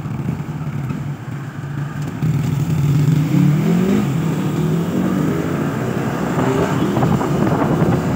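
Motorcycle engine heard from the rider's seat, accelerating: its note climbs from about two seconds in and then holds steady at speed.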